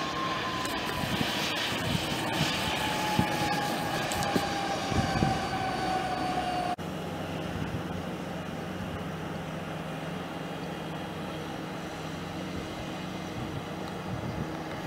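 A regional jet's rear-mounted turbofans whine as it rolls past on the runway, the whine slowly falling in pitch. About seven seconds in, the sound cuts abruptly to a narrow-body twin-jet airliner touching down and rolling out, a steady low engine rumble.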